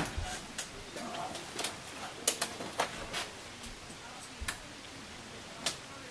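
Scattered clicks and knocks from hands working on a wagon-wheel chandelier's chain, metal fittings and glass jars: one sharp knock at the start, then a handful of short, light clicks over the next few seconds.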